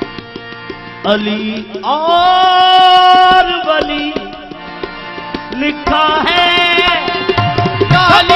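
Live qawwali music: tabla strokes over harmonium, with a voice holding two long sung notes.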